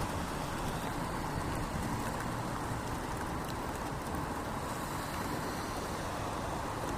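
Steady rain with an even low rumble beneath it and a few faint drop ticks.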